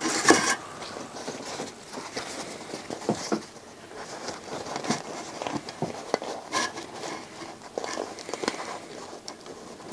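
Paper towel rustling and crinkling as it is folded and rubbed over a finned aluminium heatsink, with small scattered handling scrapes and ticks, the sharpest right at the start.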